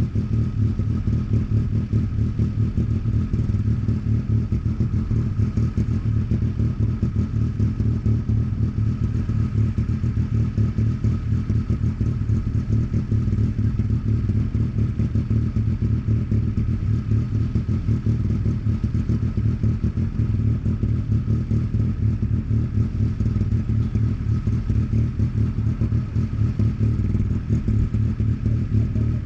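An engine idling steadily: a low, even rumble that does not change.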